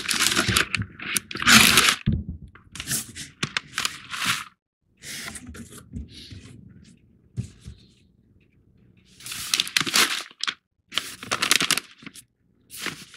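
Crinkling and rustling of a white paper coffee bag and its packing as they are pulled out of a cardboard box and handled, in irregular bursts with a quieter lull in the middle.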